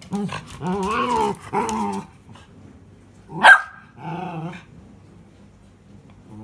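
Miniature schnauzer making grumbling, growl-like vocal calls and barks, demanding that the ball be thrown. A run of wavering calls fills the first two seconds, a sharp loud yelp comes about three and a half seconds in, and one short grumble follows.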